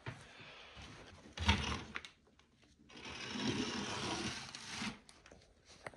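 A person moving on foot through a debris-strewn stairwell: a loud thump about a second and a half in, then about two seconds of scraping and rustling.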